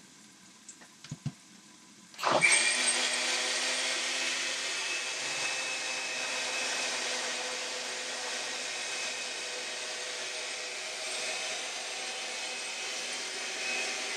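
Countertop blender switched on about two seconds in and running steadily, puréeing cooked pinto beans with carrot and bell pepper into a bean sauce; it stops at the very end. A few small clicks come before it starts.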